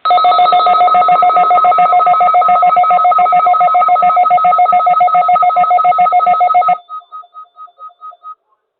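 Emergency alert receiver's electronic alarm ringing loudly: two steady tones chopped into a fast, bell-like trill. It cuts off after about six and a half seconds, leaving a few fading pulses.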